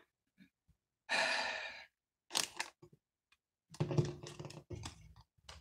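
A long breathy sigh about a second in, then a few soft clicks, and from about four seconds low mumbled voice sounds.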